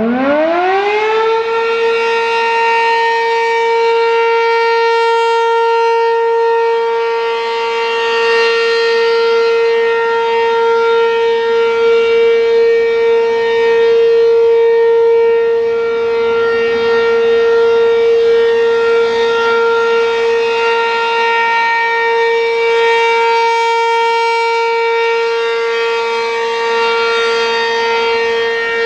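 American Signal RM-127 three-phase Penetrator outdoor warning siren winding up and settling within about a second and a half into a steady single tone, the start of its steady 'alert' signal during a scheduled test. It is very loud, and its level swells and fades slowly.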